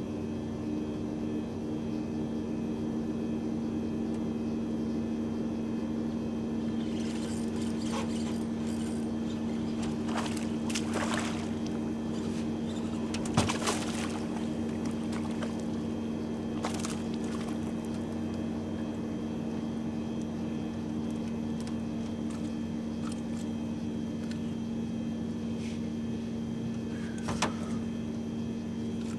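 Bow-mounted electric trolling motor running with a steady, even hum. A cluster of short sharp clicks and knocks comes through the middle of the hum, the loudest about halfway, and one more comes near the end.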